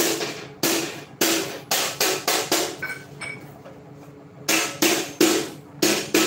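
Hammer striking metal in two quick runs of about half a dozen blows each, with a pause of nearly two seconds between. Each blow rings briefly.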